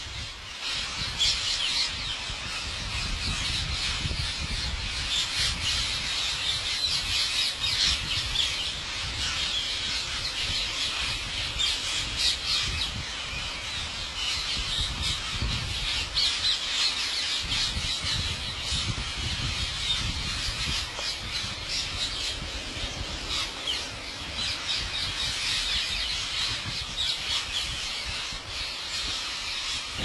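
A large flock of rose-ringed parakeets screeching continuously, many shrill calls overlapping into one dense chatter.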